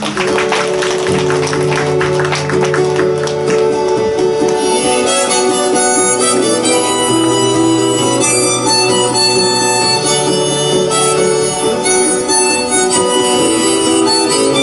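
Instrumental introduction of a folk song: an acoustic guitar strummed, with a harmonica playing the melody in long held notes from about four seconds in.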